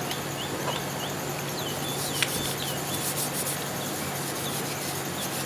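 Tissue rubbing and wiping over the metal motor housing and front shaft of a desk fan, cleaning them with gasoline: a steady, soft scrubbing with a faint steady hum underneath. A small click comes about two seconds in, and short high chirps sound in the background during the first half.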